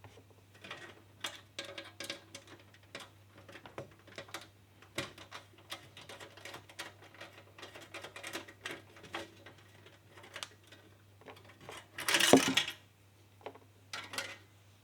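Screwdriver backing out small screws from a PC drive adapter, with many light metal and plastic clicks and taps as the screws and small parts are handled. A louder rattle comes about twelve seconds in.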